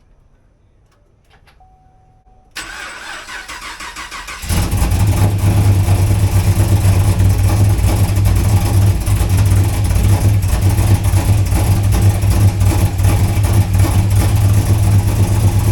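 Camaro engine cranked over by the starter for about two seconds, then catching about four and a half seconds in and running at a steady idle. It is still misfiring.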